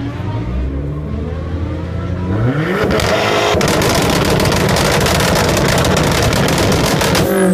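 Dodge Neon's exhaust as its engine is revved in an exhaust-sound contest: a few lower revs, then a rising rev about two seconds in to a loud, sustained high-rev hold of about four seconds, dropping off near the end.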